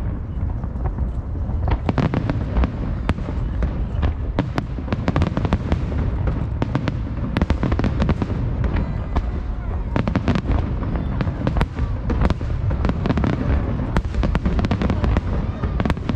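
Aerial firework shells bursting in rapid succession, many sharp bangs a second over a continuous low rumble.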